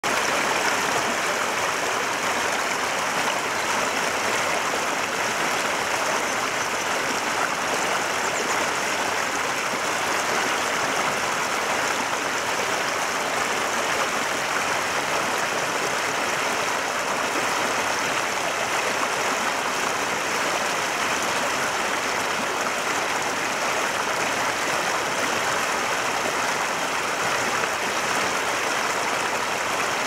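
Mountain stream rushing and splashing over boulders in a small cascade, a steady, unbroken rush of water.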